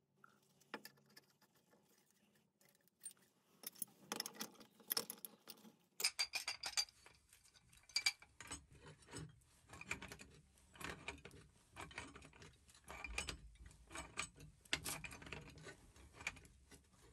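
Brass plumbing fittings and an aluminum pipe wrench clinking and knocking together as a threaded valve assembly is handled and tightened: a run of irregular light metallic clicks, more frequent after about six seconds.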